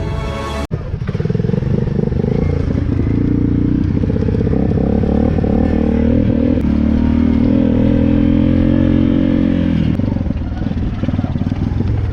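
A short music sting cuts off abruptly less than a second in. An ATV engine then runs and revs, its pitch shifting and holding before easing off near the end. It sputters at times because its fuel valve was left off.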